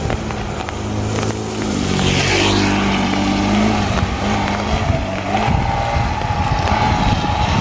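A motor vehicle's engine running, its low hum steady, with a hiss that swells and fades about two seconds in and a thin whine that rises slowly from about five and a half seconds.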